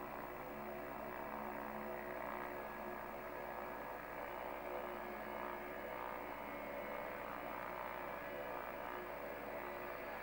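McDonnell Douglas MD-83's rear-mounted Pratt & Whitney JT8D engines running at taxi power, heard from a distance as a steady hum of several held tones.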